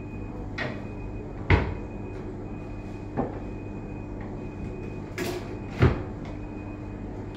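A steady background hum with a few sharp knocks; the two loudest come about a second and a half in and near six seconds in.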